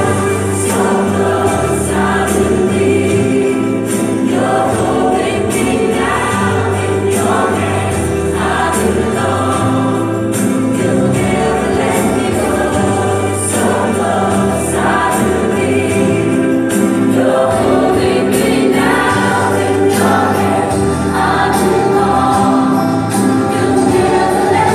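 Gospel song with a choir singing over instrumental backing, continuous and steady in loudness.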